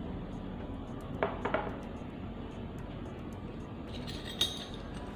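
A steel spoon clinking lightly against a glass mixing bowl a few times, about a second in and again near the end, as ground mustard is tipped onto salt, over a steady background hiss.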